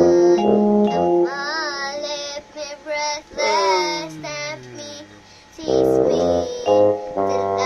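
Children's song: a child's singing voice over a keyboard accompaniment, with a long falling slide in the middle and a short lull before the music picks up again about six seconds in.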